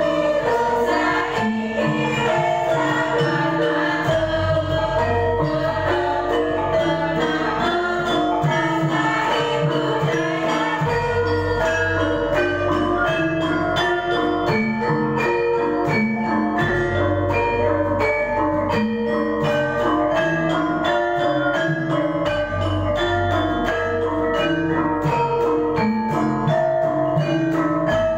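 Javanese gamelan ensemble playing: bronze metallophones and kettle gongs struck in an even, interlocking rhythm over deep hanging gongs that sound every five or six seconds.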